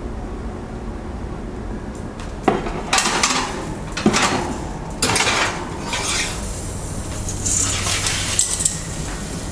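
Glass baking dish knocking and scraping on a wire oven rack as it is slid into the oven, with several sharp knocks in the first half, then further rattling and scraping.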